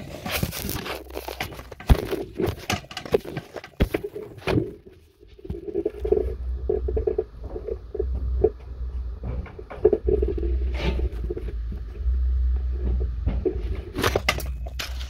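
Chimney inspection camera scraping and knocking against the sooty flue walls as it is pushed along, with many irregular clicks and a low rumble underneath.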